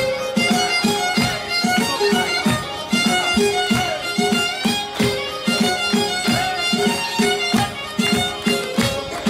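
Traditional folk dance music with a bowed, fiddle-like melody over a steady beat of about two to three pulses a second.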